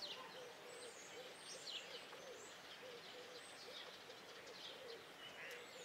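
Faint bird calls over a steady hiss: short, high, falling chirps repeat every second or so, and a string of lower short notes runs under them.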